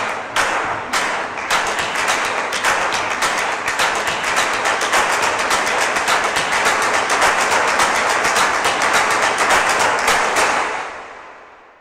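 Hands clapping: a few separate claps that quickly thicken into dense applause, which fades out near the end.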